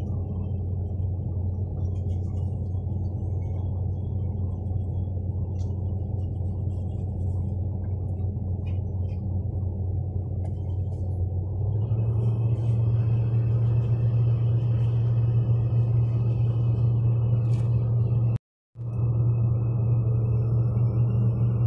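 Heavy-equipment diesel engine running steadily, stepping up to a higher, louder speed about twelve seconds in, with a brief break in the sound near the end.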